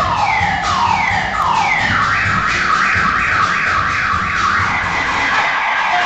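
Car alarm siren within a dance track, over a steady drum beat. It starts with slow falling whoops about every 0.7 s, switches about two seconds in to a faster run of about three falling chirps a second, and fades out near the end.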